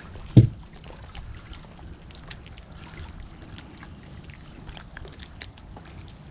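A single short thump about half a second in, then light clicks and handling noises as a freshly caught crappie is held and a jig is worked out of its mouth, over a steady low background of wind and water.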